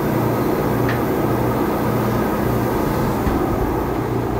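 Small air compressor running steadily with a low, pulsing hum.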